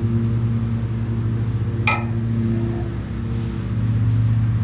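A swung Tiki Toss ring clinks once against metal, a sharp ringing click about two seconds in. A steady low hum runs underneath.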